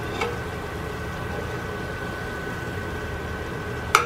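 Hot oil bubbling and sizzling in a frying pot, a steady noise over a constant hum, with a light click about a quarter second in and a sharp metal clink of the slotted spoon against the pot just before the end.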